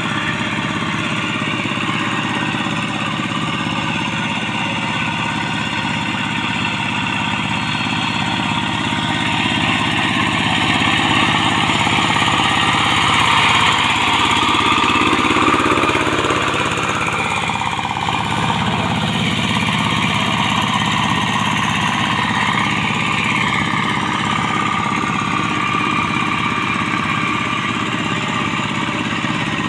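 Quick TL800 hand tractor's Yanmar TF single-cylinder diesel engine running steadily under load as it drags its iron cage wheels through paddy mud. It grows louder for a few seconds in the middle as the tractor passes close by.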